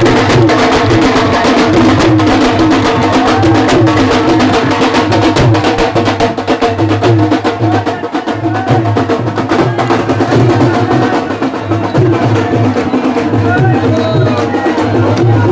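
Music with fast, dense percussion and a singing voice.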